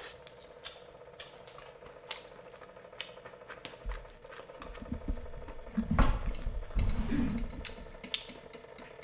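Close-up eating sounds: chewing and slurping of noodles, loudest from about four to eight seconds in, with scattered clicks of chopsticks and sizzling from a tabletop electric cooking pot that hums steadily underneath.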